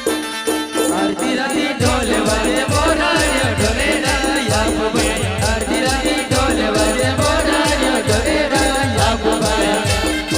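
Instrumental passage of Adivasi Timli band music: a steady drum beat with a rattle over it and a busy melodic line. The low drum drops out for the first couple of seconds, then comes back in.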